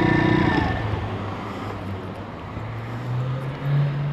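Pit bike's YX 160cc single-cylinder four-stroke engine coming off the throttle as the bike slows to park. Its note drops in the first second and it then runs low and steady.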